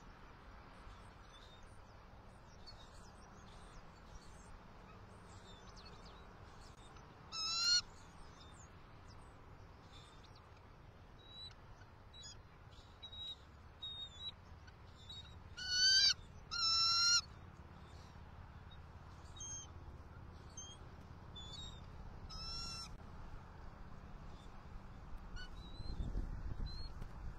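Bald eagles calling at their nest: high, wavering calls, one about a quarter of the way in, two close together just past the middle and a softer one later, with small bird chirps scattered between them. Near the end comes a low rustle as an eagle spreads its wings.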